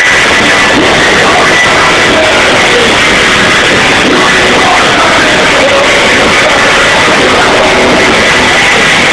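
Live rock band playing loudly, guitars and drums smeared into a dense, distorted wall of sound. The recording is overloaded and muffled, with little treble: the "bad sound" of a concert taken on a camera or phone.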